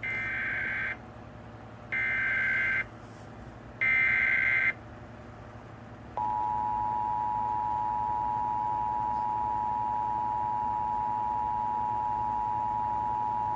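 Emergency Alert System SAME header: three short bursts of shrill warbling digital data, each about a second long with about a second between them. About six seconds in, the steady two-tone EAS attention signal begins, announcing the river flood warning that follows.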